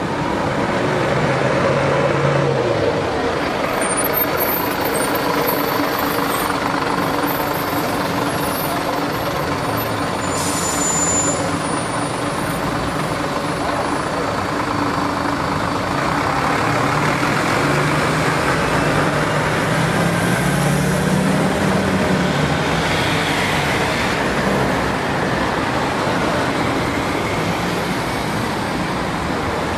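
Steady road traffic, with the engine hum of heavy vehicles rising and falling as they pass.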